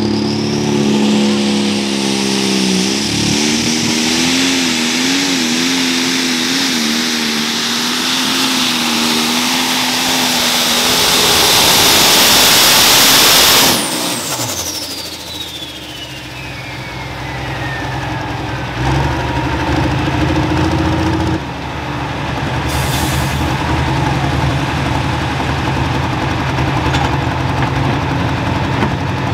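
Turbocharged diesel pulling tractor running under full throttle, its engine pitch wavering and then building to a loud roar. About fourteen seconds in the throttle is cut suddenly and the turbo's high whine falls away over a few seconds. The engine then runs on at low revs.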